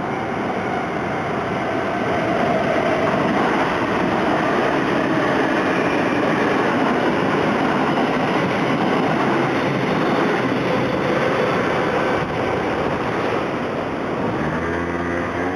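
Kintetsu Nara Line electric train passing at close range: a loud, steady rumble of wheels on rail. A low pitched hum comes in near the end.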